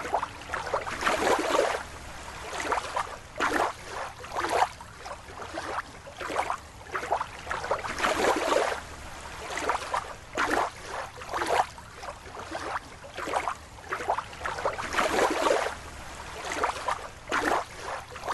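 Water splashing and sloshing in irregular bursts, roughly one a second.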